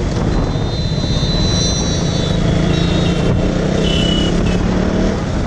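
KTM Duke 200's single-cylinder engine running at a steady highway cruise, with wind rushing over the microphone.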